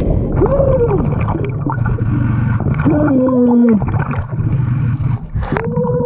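Underwater sound in a river pool beneath a waterfall: a steady low rumble of moving water and air bubbles. Over it come three muffled tones that rise and then fall, one about half a second in, one around three seconds in, and a longer one near the end.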